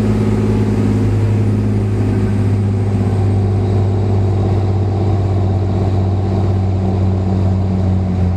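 Glass-bottom boat's engine running steadily, a loud low drone.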